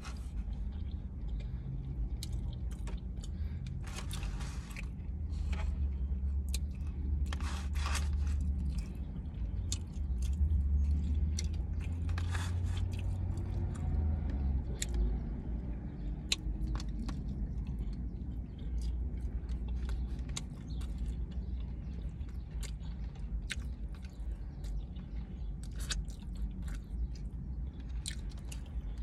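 A person chewing and biting into a chicken taco close to the microphone, with many short wet clicks and crackles from the mouth, heavier around four and eight seconds in, over a low steady rumble.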